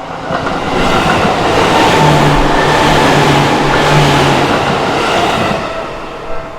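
A Seibu Sayama Line electric train passing close by a level crossing. The rush of wheel and rail noise builds quickly, stays loud for several seconds with a steady low hum under it, and fades away near the end.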